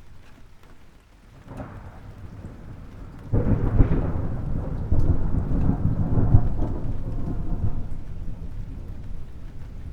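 A thunderclap in a rainstorm. A low rumble builds, then breaks loud and sudden a little over three seconds in, rolls on with a second surge, and dies away under the steady hiss of rain.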